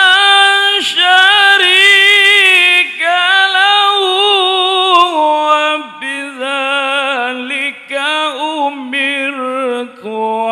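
A male qari reciting the Quran in a high, melodic chant into a microphone, drawing out long ornamented notes. The pitch is high at first and steps lower from about halfway, with short breaths between phrases.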